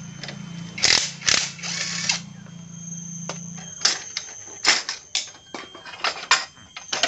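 Cordless drill-driver unscrewing a muffler mounting bolt on a motorcycle: a steady motor whir with loud rattling bursts in the first couple of seconds, stopping a little after halfway. Then a series of sharp metal clinks and clanks as tools and the loosened exhaust pipe are handled.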